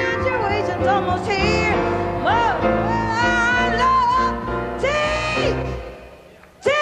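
Female jazz singer vocalizing with wavering, gliding held notes over an upright double bass in a live performance. The music drops away near the end, then comes back in loud right at the close.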